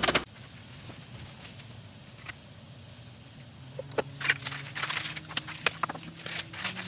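Small sharp clicks and taps of hands working at a lab bench, scattered and starting about four seconds in, over a faint steady hum.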